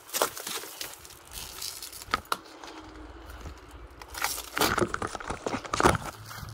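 Footsteps crunching over dry leaves and rubble, with gear and a replica rifle rattling against a body-worn action camera. The steps are irregular and get heavier and louder in the second half.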